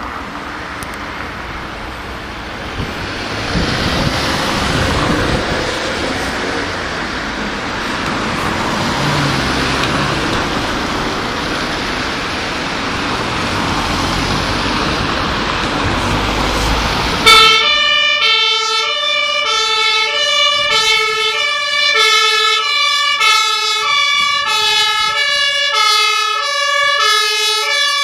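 A rushing noise, then about 17 seconds in a German two-tone fire-service siren (Martinshorn) starts suddenly and sounds loudly, switching back and forth between a lower and a higher pitch.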